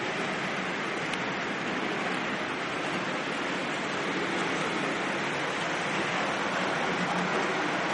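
OO gauge model GBRf Class 66 diesel locomotive hauling container wagons, running along the track with a steady rolling noise that gets slightly louder in the second half as the train passes close.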